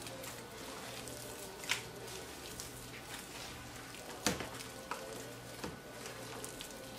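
Corn masa and pork lard being beaten by hand in a plastic bowl: continuous wet squishing and patting of the soft dough, with a couple of sharper slaps about two and four seconds in.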